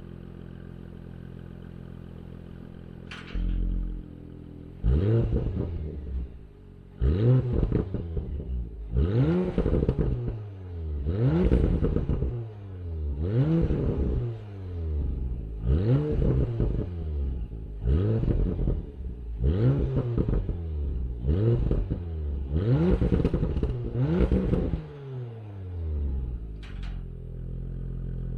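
2021 Porsche Macan Turbo's twin-turbo V6 idling, then revved in about ten quick blips, one every two seconds or so, each rising sharply and falling back, before it settles to idle again. There is a click before the revving starts and another near the end.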